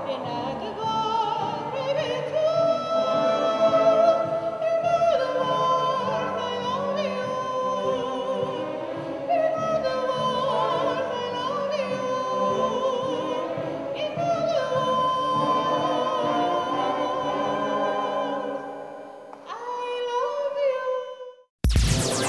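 A woman sings in operatic style with a wide vibrato, accompanied by a string orchestra of violins and cellos. The phrase ends on a long held note, and near the end a short bright electronic jingle cuts in.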